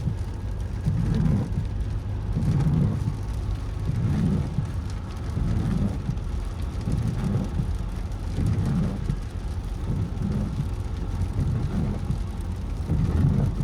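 Windscreen wipers of a 2024 Mercedes-Benz GLE sweeping back and forth over steady car noise, a squeak on each stroke about every one and a half seconds: a recurring wiper-system squeak that several workshop repairs have not cured.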